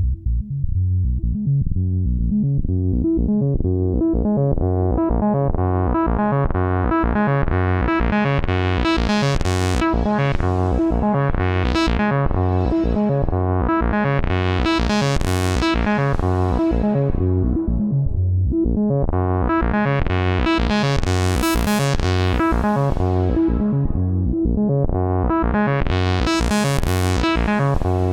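Moog Subharmonicon analog synthesizer playing a repeating sequenced bass pattern, its tone brightening and darkening in slow waves, four times over.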